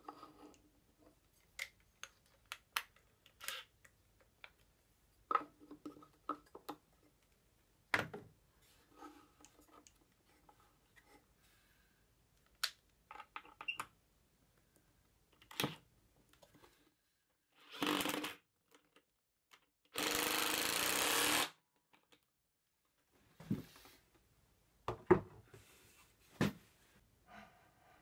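Makita cordless impact driver hammering screws into a wooden jig: a short burst, then a longer one of about a second and a half. Scattered knocks and clicks of wooden pieces being handled, with one sharp knock near the end.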